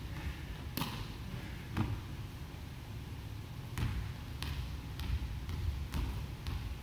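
Volleyball bouncing on a hardwood gym floor: single sharp thuds, one about a second in, then a run of about six roughly every half second through the second half, over a steady low rumble.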